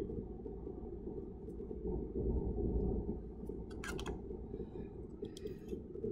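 Steady low room hum with one sharp click about four seconds in and a few fainter clicks later: small handling noises from culture tubes with plastic slip caps being worked in a plastic rack.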